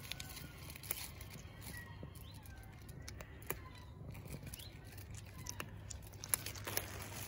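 Black cat crunching dry kibble: irregular crisp crunches and clicks as it chews, the sharpest about six and a half seconds in.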